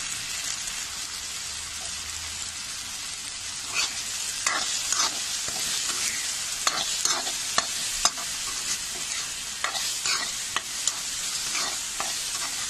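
Chopped onions and tomatoes sizzling in oil in a kadai, with dry spice powders being stirred in. About four seconds in, a metal spoon starts scraping and stirring against the pan in repeated strokes over the steady sizzle.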